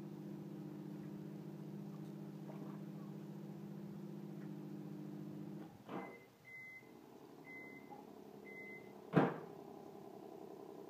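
A steady low machine hum, like a motor running, which thins and shifts about six seconds in. There is a sharp knock at that point and a louder one about three seconds later.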